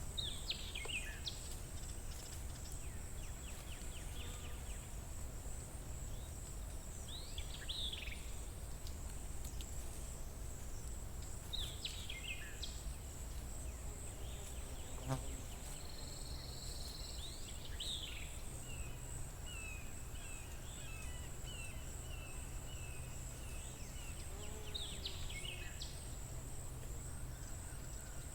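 Spring outdoor ambience: a songbird repeats a short, quickly falling whistled phrase every few seconds over a steady, high-pitched pulsing insect trill, with a low rumble underneath.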